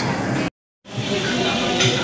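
Background music, broken by a brief gap of complete silence about half a second in.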